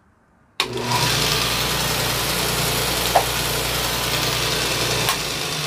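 Grizzly G1015 2x72 belt grinder switched on about half a second in and running freely with no work on the belt: a steady motor hum under the hiss of the moving belt, with one short knock about three seconds in. Near the end the motor is switched off and the grinder starts to wind down.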